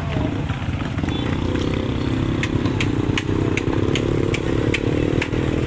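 A motor vehicle engine running steadily, with scattered light clicks and rattles over it.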